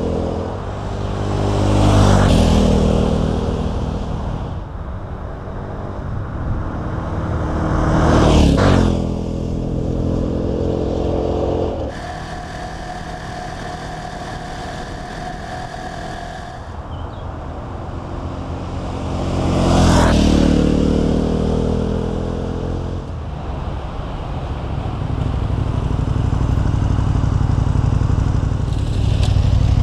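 KTM 1190 Adventure's V-twin engine through an Akrapovic exhaust. The bike passes close by three times under throttle, its pitch dropping as it goes by each time. In between there is a steadier stretch of cruising heard from on board, and near the end the engine runs at low revs close by.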